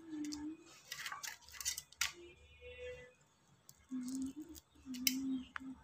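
Raw prawn shells crackling and snapping as they are peeled off by hand, a run of sharp clicks and crinkles. Short low humming tones come and go behind them.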